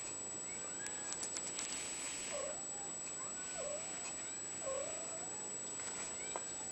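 Young Ragdoll kitten mewing: a string of short, thin mews, the three loudest about a second apart in the middle.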